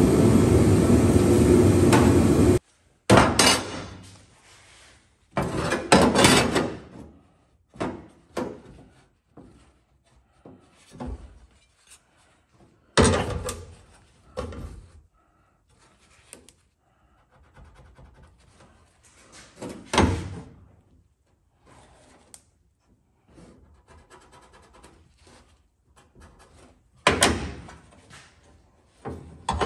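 A steady loud noise that cuts off abruptly about two and a half seconds in. Then scattered knocks and clanks, about eight of them, some ringing briefly, as a metal speed square and hand tools are set down and moved on the bare sheet-steel floor pan of a truck cab, with faint handling noise between them.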